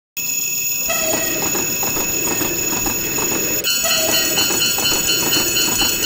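Railroad crossing warning bells ringing over the rumble and regular wheel clatter of a passing train. About three and a half seconds in, a second bell with a quicker pulsing ring joins in.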